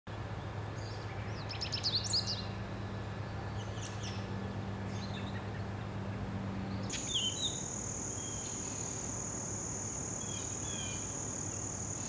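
American goldfinch twittering in two short runs of quick high chirps, about two and four seconds in, over a low steady hum. After a cut, a steady high insect drone, cricket-like, with a few faint bird chirps.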